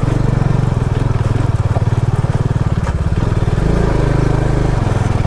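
Bajaj Dominar's single-cylinder engine working hard under load as the motorcycle is pushed through a difficult off-road stretch, a steady fast pulse whose note shifts briefly about two-thirds of the way through.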